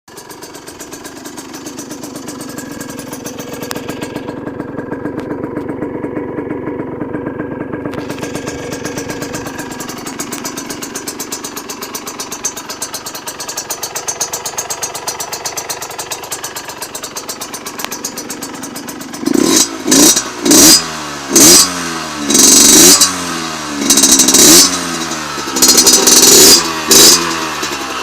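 HM Derapage RR two-stroke moped engine with a carbon Giannelli exhaust idling steadily, then revved hard about seven times in quick succession near the end, each blip rising sharply and falling back.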